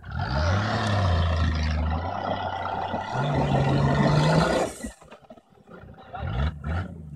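Off-road 4x4's engine revving hard under load on a steep dirt climb, with tyres spinning in loose dirt. The revs climb about three seconds in, then the engine backs off sharply near five seconds and runs on more quietly.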